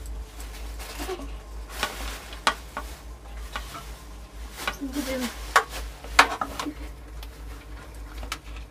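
Spoon scraping and clinking against a metal pot as it digs through cooked biryani rice, with a string of sharp clicks, the loudest two about five and a half and six seconds in, over a steady low hum.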